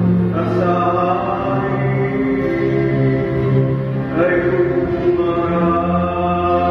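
A man chanting a responsorial psalm in Tagalog, in long held notes with a slide up in pitch about four seconds in.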